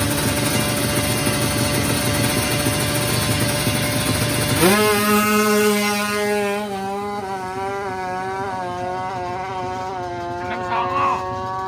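Drag-racing motorcycle of the 350 cc free-for-all class revving hard at the start line. About four and a half seconds in it launches: the engine note climbs sharply, then rises and dips through quick gear changes as the bike pulls away, fading with distance.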